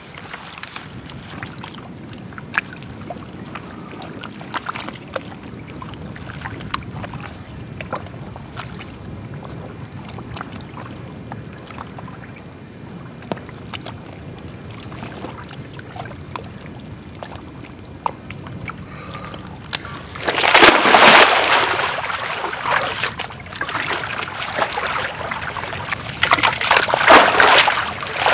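Thick wet mud squelching and sloshing as a person's body pushes through it, in loud surges from about two-thirds of the way in. Before that, a faint low rumble with scattered small clicks.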